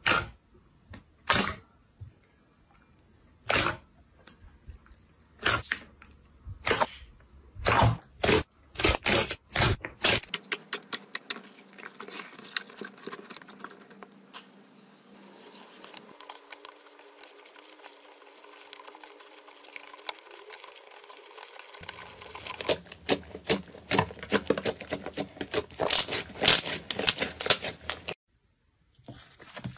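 Thick white slime squeezed and stretched by hand, giving sharp separate pops and clicks. Then a can of shaving foam sprays onto glittery pink slime with a long steady hiss, followed by dense rapid crackling and popping as the foamy slime is worked.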